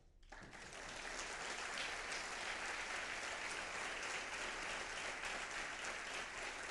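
Large audience applauding. The clapping starts a moment in and holds steady.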